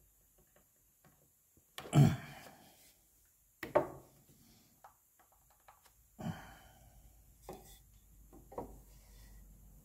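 Wooden knocks as a tenoned rail is fitted into its mortise and the pieces are handled on a metal saw table: a sharp knock about two seconds in, another near four seconds, then a few lighter knocks.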